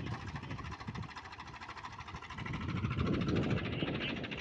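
Swaraj tractor's diesel engine running as it drives a rotavator through wet paddy-field mud, getting louder about halfway through.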